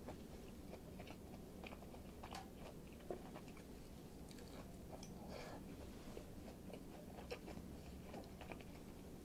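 A person biting into and chewing a miso katsu sandwich, a breaded pork cutlet with shredded cabbage in a soft bun. Faint, irregular crunches and small mouth clicks.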